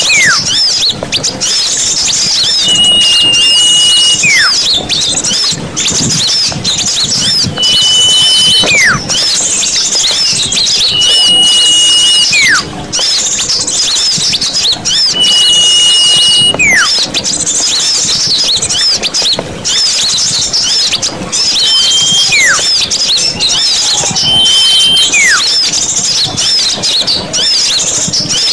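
Bird-lure recording of many small birds chattering and chirping densely together. A long, steady, high whistle followed by a quick falling whistle repeats about every four seconds over the chatter.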